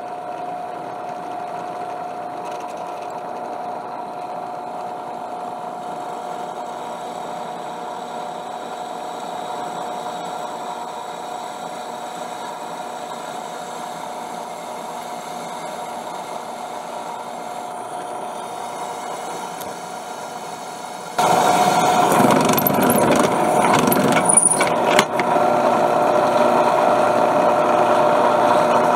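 Drill press running with a steady motor hum while a twist bit drills through a high-carbon steel knife blank. About two-thirds of the way in the sound jumps abruptly louder and rougher.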